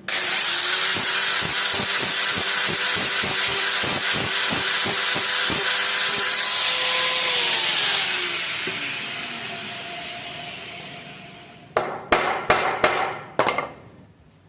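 An electric power tool switches on abruptly and runs at a steady pitch, with a regular chattering in its first half. It is then switched off and its motor winds down, the pitch falling as it fades. Several sharp knocks follow near the end.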